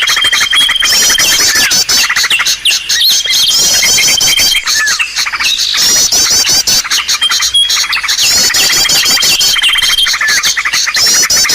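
Bird-lure recording of several small birds calling at once: fast dry chattering, rapid runs of repeated swooping chirps, and a long level whistle that recurs about every four seconds as the track loops. It is a decoy call played to draw small birds in for trapping.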